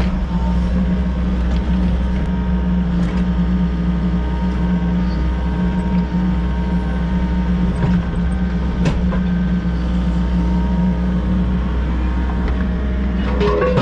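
Volvo EC60E mini excavator's diesel engine running steadily, with a few short sharp knocks scattered through.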